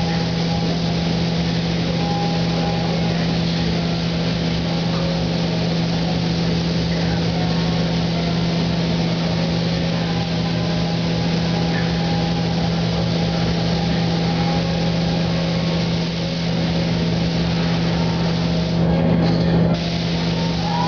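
Paint spray gun hissing steadily as clear coat is sprayed, over a steady low hum of machinery; a slightly louder burst near the end.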